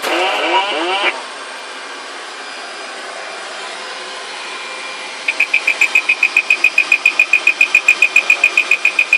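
A 747-200 cockpit electronic warning tone beeping rapidly, about six high-pitched beeps a second, starting about five seconds in over a steady background noise. A brief rising, voice-like sound comes in the first second.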